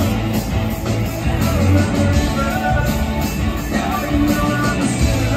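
Rock band playing live, with drums, bass and electric guitar. A harmonica played into a vocal microphone carries a wordless lead melody over them.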